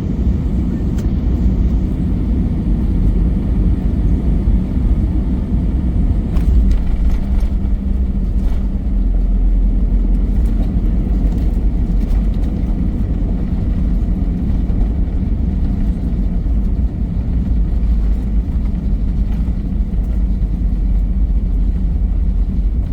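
Steady low rumble of an Airbus A320's engines and airframe heard from inside the passenger cabin, with a few faint clicks partway through.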